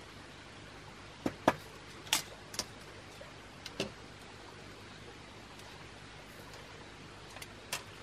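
Irregular sharp clicks and knocks from bamboo pieces being handled and worked by hand: a cluster of about six in the first four seconds, the loudest about a second and a half in, and one more near the end, over a steady faint hiss.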